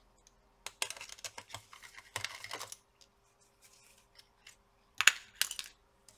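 Quick small clicks and taps of a screwdriver and small parts being handled on an open laptop: a busy run of clicks in the first half and a louder short cluster about five seconds in.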